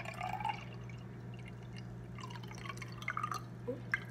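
Fruit punch pouring from a plastic jug into a glass jar, the stream gurgling and splashing unevenly.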